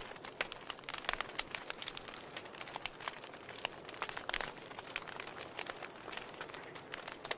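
Wood fire in a fireplace crackling, with irregular sharp pops and snaps over a soft steady hiss of the flames.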